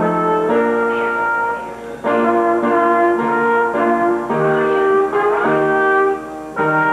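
Brass instruments playing a tune in held chords, with short breaks between phrases about two seconds in and again near the end.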